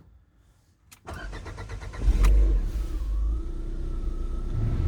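A click, then the starter cranks the Lada Vesta's 1.6-litre four-cylinder petrol engine for about a second before it catches with a burst of revs about two seconds in and settles into a steady idle.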